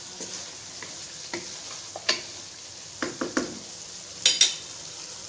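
Spoon stirring the creamy chicken karahi gravy in a pan as it sizzles steadily, with scrapes and knocks of the spoon against the pan, the loudest two in quick succession about four seconds in.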